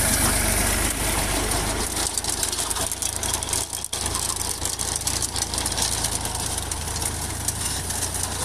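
Tractor engine running steadily as it pulls a potato digger through the soil, with a continuous clatter of small clicks from the digger working over it.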